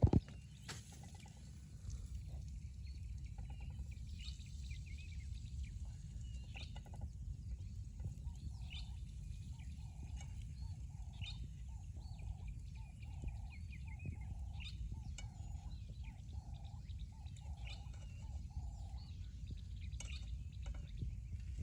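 Wild birds calling: scattered high chirps throughout, and a run of low, evenly repeated notes about twice a second from about nine seconds in to nineteen, over a steady low rumble.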